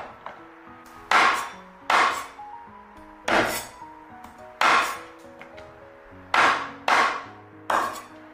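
Chinese cleaver chopping down through raw chicken feet and toe tips onto a wooden cutting board: about seven sharp chops at uneven intervals. Soft background music underneath.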